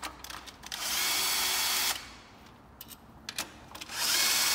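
A cordless power tool whirring on the engine's cylinder head in two steady runs of about a second each, one about a second in and one near the end. Between the runs there are small clicks and taps of handling.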